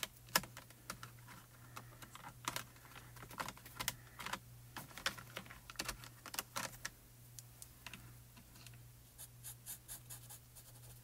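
Colored pencils clicking and rattling against each other and a metal tin as a hand sorts through them: a run of irregular light clicks.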